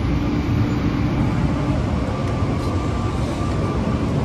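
Rubber-tyred PHX Sky Train people-mover car running along its elevated guideway, heard from inside the cabin as a steady rumble. A faint steady whine comes in about halfway through.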